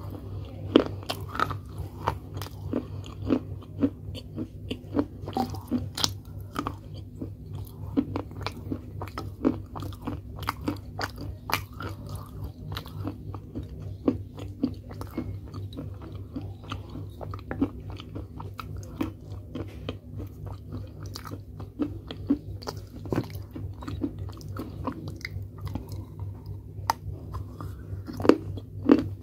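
Close-miked crunching and chewing of baked clay pottery pieces: a dense, irregular run of sharp crunches over a faint low hum.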